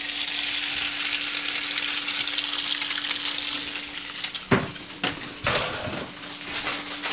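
An egg sizzling and spitting in hot bacon grease in a frying pan, a dense crackling hiss that begins as it hits the fat. The hiss thins about halfway through, and knocks and clatter of things being handled follow.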